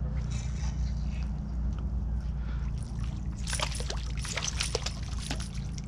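A hooked trout thrashing at the surface and splashing, starting about three and a half seconds in and lasting about two seconds, over a steady low hum.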